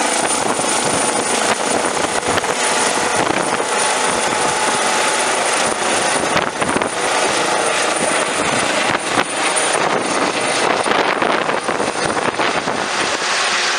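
Airbus H135 helicopter climbing away overhead after lift-off: steady turbine and rotor noise with a thin, steady high whine.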